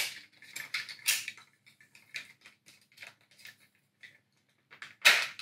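Hard plastic parts of a Power Rangers Whale Bomber Zord toy clicking and knocking as its legs, wings and joints are repositioned and clipped together: a string of irregular small clicks.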